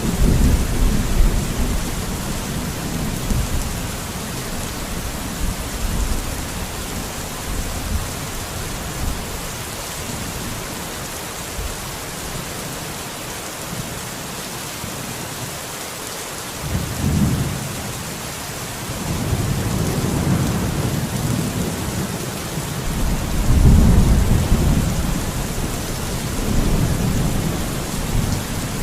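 Steady rain hissing, with deep low rumbles that swell and fade several times, strongest in the second half.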